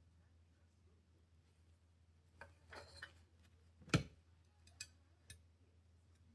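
Handling noises from reassembling a pistol: a brief scrape with clicks about two and a half seconds in, one sharp knock about four seconds in, then two light clicks, over a faint low hum.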